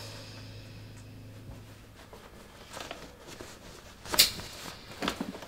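Quiet room with a low hum that fades out about two seconds in. Then soft rustling, a single sharp click about four seconds in, and a short cluster of lighter knocks and rattles near the end.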